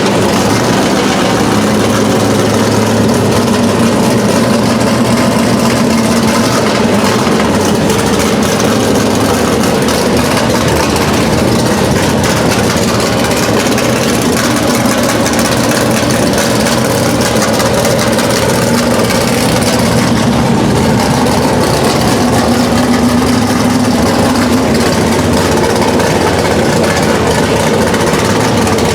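Fuel-injected, high-compression big-block Chevrolet V8 in a Chevelle SS idling steadily and loudly just after its first start on a new Edelbrock Pro-Flo 4 EFI system, whose fuel injection is not yet fine-tuned.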